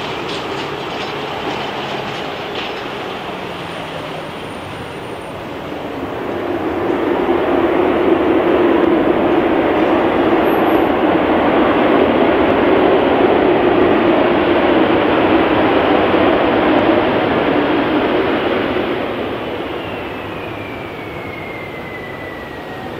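Jet airliner passing: its engine noise swells for several seconds, holds, then fades, with a falling engine whine near the end.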